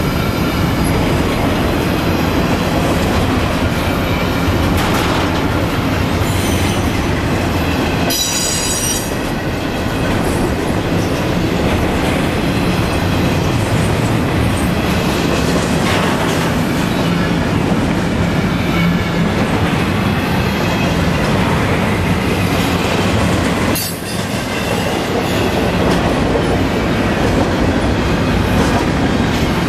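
Intermodal freight train of double-stack container well cars rolling past close by, with steady wheel-on-rail noise. A brief high-pitched wheel squeal comes about 8 seconds in.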